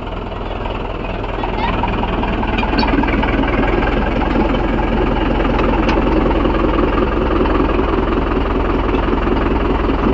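Mahindra 415 DI tractor's diesel engine running steadily, getting louder about two seconds in and then holding at a constant pitch.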